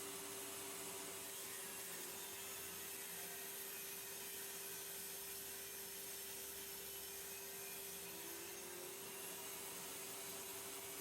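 Table saw running with a steady whine.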